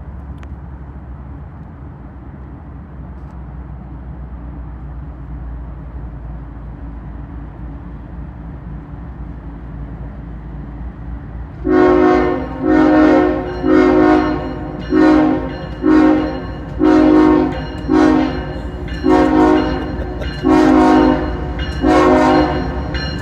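Union Pacific locomotive: a low steady diesel rumble, then about halfway in its air horn starts a long run of short blasts, roughly one a second, each a chord of several tones.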